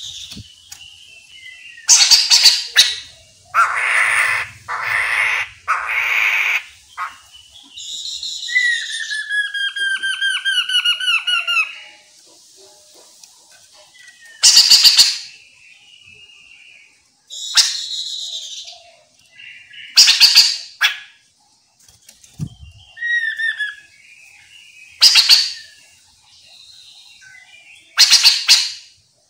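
Chestnut-capped laughingthrush calling: loud, harsh, rasping calls repeated every few seconds, three lower grating calls in a row, and one run of whistled notes falling in pitch.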